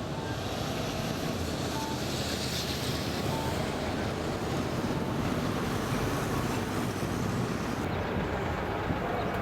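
Steady city street noise: road traffic going by, with wind rumbling on the camcorder's built-in microphone.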